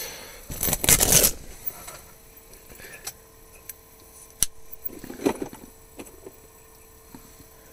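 Handling noise from an ice-fishing rod and reel being worked while a whitefish is hooked on light line. A loud scraping rustle comes about a second in, then a few sharp clicks, and another short rustle about five seconds in.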